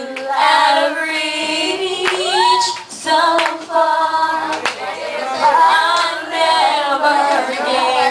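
Women singing into handheld microphones, the voice gliding upward about two seconds in, with a few short sharp sounds near the middle.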